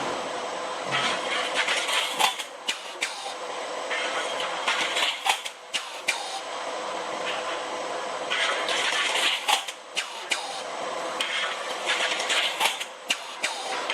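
Automatic baling machine for drywall wall-angle profiles running, with a steady hum and many sharp metallic clicks. Stretches of hiss come back every few seconds.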